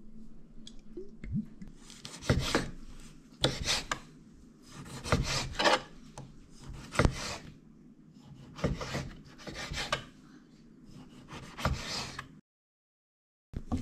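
Kitchen knife slicing raw paua (abalone) on a wooden chopping board: groups of short rasping strokes as the blade cuts through the flesh and scrapes the board, coming every second or two, then cutting off suddenly near the end.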